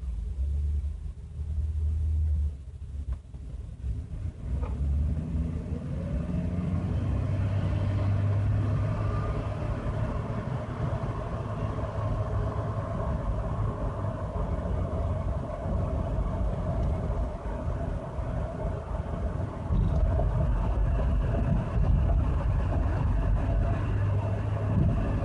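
Ford Explorer Sport Trac running with a low rumble and a steady whine. The whine rises in pitch about five seconds in and then holds. This is the terrible sound the truck is making.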